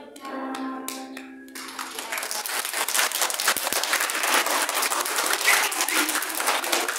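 A piece of music ends on a held note. About a second and a half in, an audience of young children breaks into loud, dense applause that runs on.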